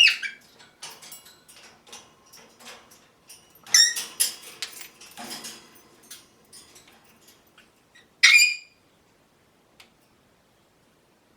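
African grey parrot making a string of squeaks, clicks and short high calls, with loud squawks at the start, about four seconds in and about eight seconds in, then falling quiet.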